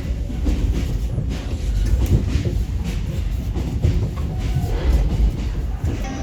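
Passenger train running on the rails, heard from inside the carriage: a steady low rumble with the clatter of wheels over rail joints.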